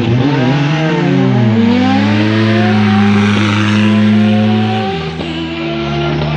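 Rally car engines. In the first second or two one car's engine note sweeps and falls as it pulls away. Then a rally car's engine idles close by with a steady note that drops lower about five seconds in.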